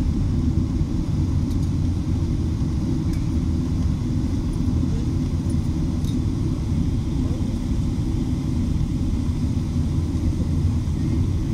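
Steady low rumble inside an airliner's passenger cabin as it rolls along the taxiway after landing: engine noise and wheels on the pavement.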